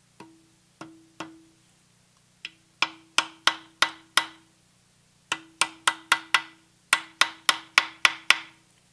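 Light hammer taps driving the pins of a Delta nameplate badge into a vintage Delta 6-inch jointer's cast-iron base, about twenty taps in four quick runs. Each tap leaves a short ringing note from the casting.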